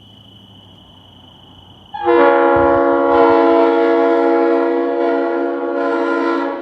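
Multi-chime locomotive air horn blowing one long steady chord, starting about two seconds in and cutting off at the end.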